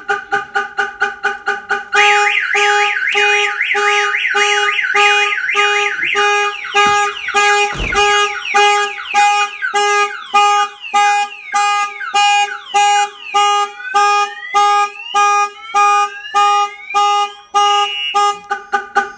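Viper car alarm siren going off after a door is opened by hand. It cycles through its tones: rapid chirps, a fast warble, then falling and rising sweeps, over a steady pulsing tone. There is a single thump about eight seconds in, and the siren cuts off just before the end.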